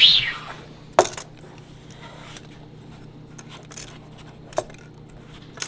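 Small metal camp pot with wire handles clinking and knocking on a wooden table while dough is mixed by hand inside it. There is a scrape that falls in pitch at the start, a sharp knock about a second in, and two lighter knocks near the end.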